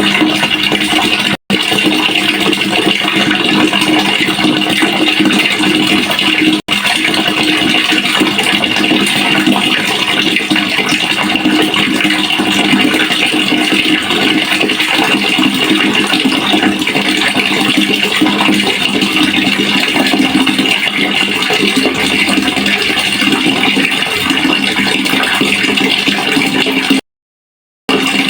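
Water running steadily into a pail, a dense splashing rush with a constant ringing hum from the pail. It cuts out for an instant twice in the first seven seconds and for about a second near the end.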